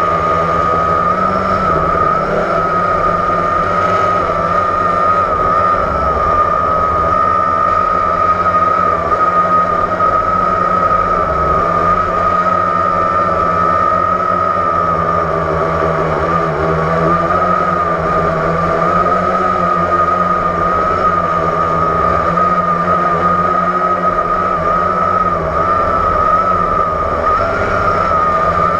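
Blade 350 QX quadcopter's four electric motors and propellers in flight, heard up close from on board as a loud, steady high whine with a lower hum. The pitch wavers slightly as the throttle shifts.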